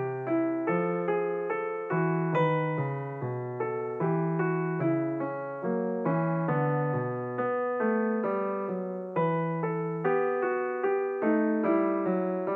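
Background piano music, notes struck in a steady, even rhythm about twice a second.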